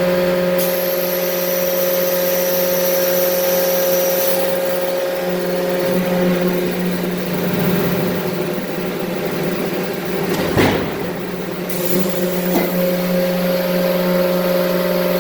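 Hydraulic forging press cell machinery running: a steady multi-tone hum with a high whine that cuts out about four seconds in and comes back near the end. There is one sharp clank about ten and a half seconds in.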